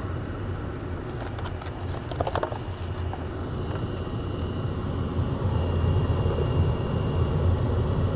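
Running furnace and air-conditioning equipment: a steady low mechanical hum, with a few light clicks and taps of handling about one to three seconds in and a faint high whine joining after that.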